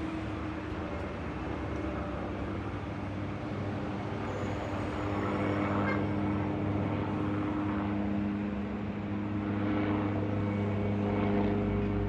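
Engine running with a steady, droning hum of several held tones over a rushing noise, getting somewhat louder and deeper toward the end.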